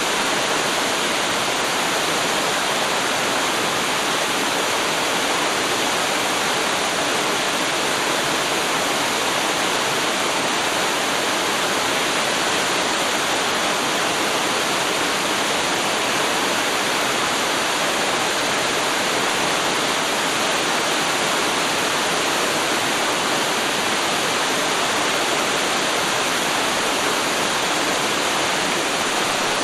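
Waterfall pouring steadily, an even, unbroken rush of falling water.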